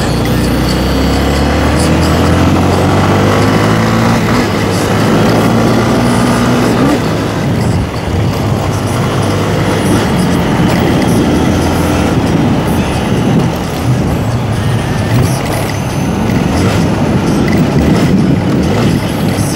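Motorcycle engine accelerating hard, its pitch rising over the first several seconds, then running on at road speed under loud wind rush over the microphone.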